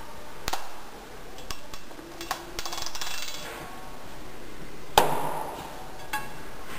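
A coated strip being handled, giving a few sharp knocks and clicks. Most are light taps; one louder knock comes about five seconds in.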